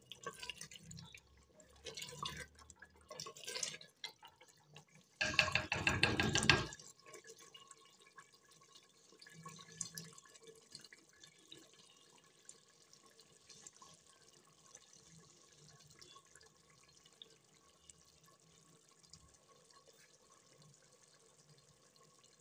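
Chicken curry with cream bubbling and spluttering in a cooking pot, with a spoon stirring through it in the first few seconds and a louder burst of noise about five seconds in. After that only a faint, steady bubbling goes on.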